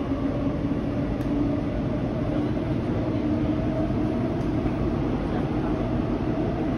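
Inside a Shinbundang Line subway car running at around 60 km/h and still gaining speed: a steady rumble of the train with a low hum.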